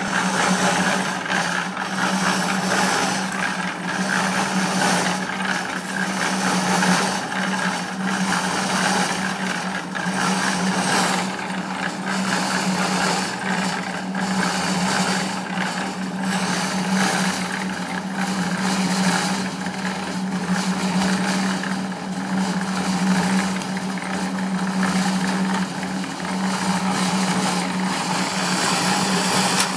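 Small drum concrete mixer running, its motor humming steadily while the mortar tumbles and rattles inside the turning drum, with irregular scraping and knocking as the hoe works the mix at the drum's mouth.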